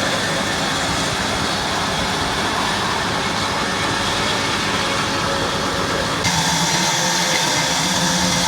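Sawmill machinery running with a loud, steady mechanical noise. About six seconds in, the sound shifts abruptly and turns brighter and higher.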